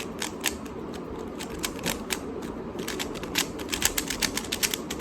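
Rubik's-type speedcube being turned fast by hand: a quick, irregular run of clicks from the plastic layers snapping past each other, growing busier and louder in the second half.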